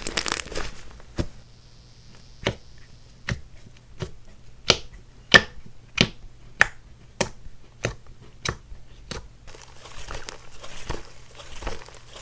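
Slime being pressed and poked by hand, giving sharp wet pops and clicks about every half second, with denser crackling at the start and again near the end.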